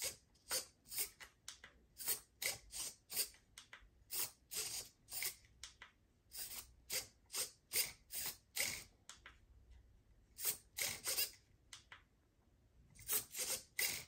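A series of short scratchy, rasping strokes, about three a second, in bursts broken by pauses of about a second.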